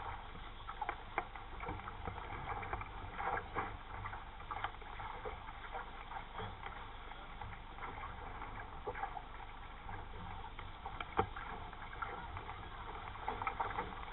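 Water splashing and slapping against the hull of a 420 sailing dinghy under way, in irregular bursts over a steady low rumble of wind on the microphone, with one sharper knock about eleven seconds in.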